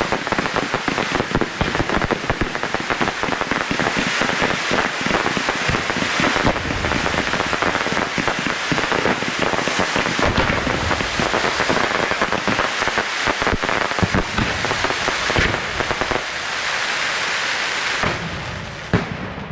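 Fireworks display at close range: a dense, continuous crackling of many small bangs and pops, thinning out with a few last pops near the end.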